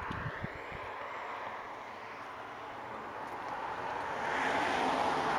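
Highway traffic noise: tyre and road noise of a passing vehicle that swells over the last couple of seconds as it approaches. A few soft low thumps right at the start.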